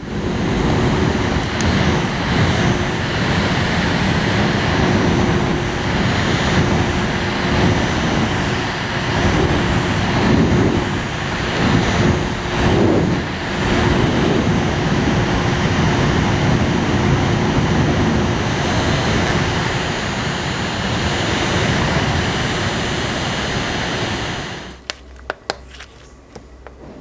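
Fan of a portable mini air conditioner blowing close to the microphone: steady rushing air over a steady motor hum. It cuts off a few seconds before the end, followed by a few clicks.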